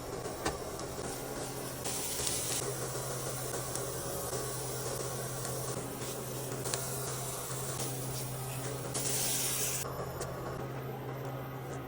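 Kitchen cooking hiss: a steady hiss with three short, louder bursts of hissing about two, six and a half and nine seconds in, over a steady low hum.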